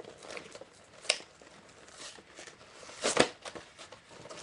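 Toy packaging being handled: scattered rustling of plastic and cardboard, with a sharp click about a second in and a louder crinkle a little after three seconds.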